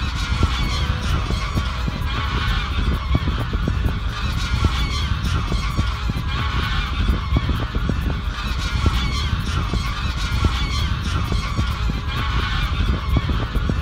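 A large flock of geese, about two hundred birds, honking continuously as they take flight, flushed by a dog. A steady low rumble runs underneath.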